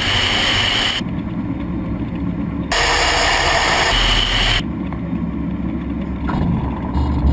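Twin Pratt & Whitney JT15D turbofans of a Cessna Citation II running, a steady jet rush with a high whine in some stretches, broken by several abrupt jumps in level and tone.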